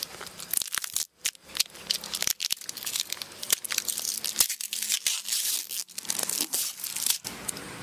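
Thin plastic tamper seal being torn and peeled from around the lid of a plastic tub, with irregular crinkling, crackling and sharp clicks of the plastic.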